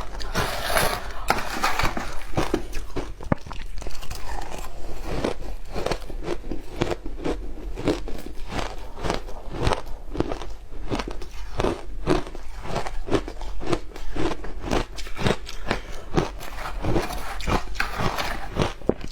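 Matcha ice being bitten and chewed: a continuous, uneven run of crisp crunches and cracks as the ice breaks between the teeth.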